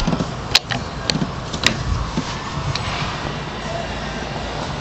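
Sharp plastic-and-metal clicks from a bass boat's deck storage compartment lid and latch being handled, three in quick succession in the first two seconds and a fainter one later, over steady outdoor background noise.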